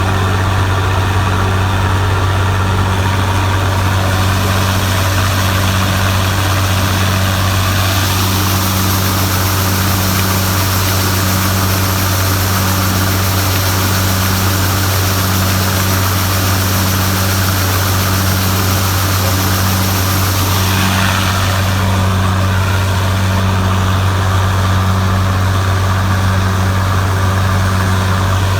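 Large farm machine's diesel engine running steadily at constant speed: a strong low hum with a slow, regular throb. A high hiss comes in about eight seconds in and fades away about thirteen seconds later.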